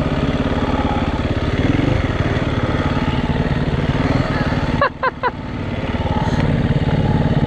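KTM EXC-F 350 four-stroke single-cylinder dirt bike engine running at low speed on a steep downhill. About five seconds in its sound drops away briefly, with a few short squeaks, then picks up again.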